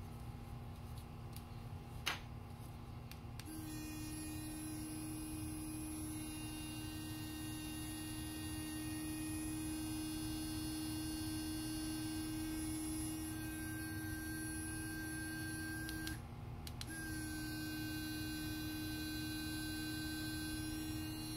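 Sonic electric toothbrush, rated 40,000 strokes per minute, switched on after a click and running with a steady buzz. It cuts out for under a second and starts again.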